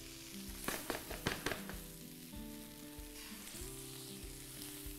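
Egg omelet frying quietly in a nonstick pan with a light sizzle. A rubber spatula scrapes and taps around the pan several times in the first couple of seconds as it loosens the omelet's edges.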